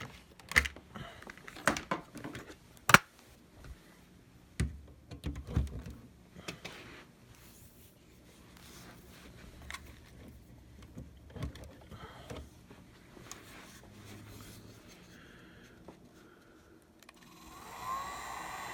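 Sharp clicks, taps and light scraping of small tools being handled and worked against the iPad mini's glass. About 17 seconds in, a hot-air tool switches on and blows steadily with a faint whine, warming the screen adhesive.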